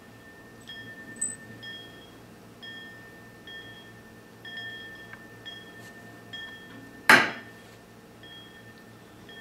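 A hammer strikes a steel maker's-mark stamp once, about seven seconds in, a single sharp metallic crack as the mark is punched into the silver wire. Before it, short clear ringing notes of one pitch recur roughly once a second.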